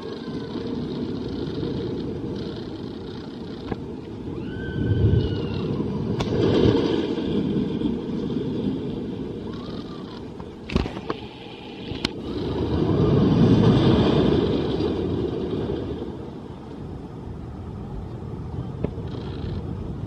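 Zamperla Windstorm roller coaster train rumbling along its steel track, swelling louder twice as it passes, with a couple of sharp clicks near the middle.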